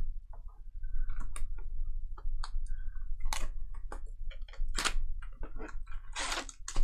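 Trading cards and card packs being handled on a table: irregular quick clicks and taps with a few short rustles.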